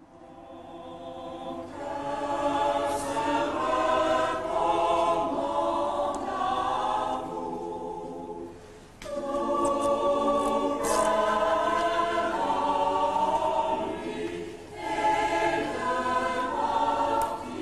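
Mixed choir of men's and women's voices singing together in parts, fading in at the start, with short breaks between phrases about nine seconds in and again near fifteen seconds.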